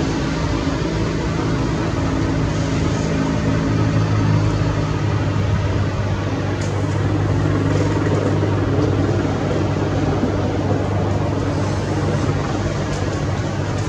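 Bell 412 EP helicopter on the ground during engine shutdown: its twin turboshaft engines and main rotor keep running with a steady noise. A low hum joins a few seconds in.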